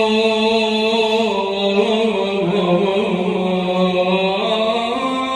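A man's voice singing a Shia elegy (latmiya) in the radood style, holding one long drawn-out melismatic line without words. The pitch sinks in the middle and climbs again near the end.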